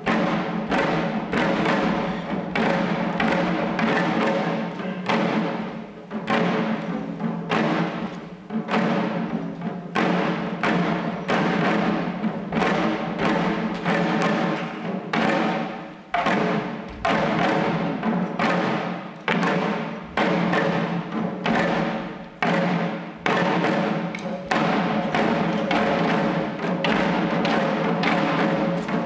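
Shishi odori deer dancers beating the small drums hung at their chests, a steady stream of strikes about two a second, over a held tone underneath.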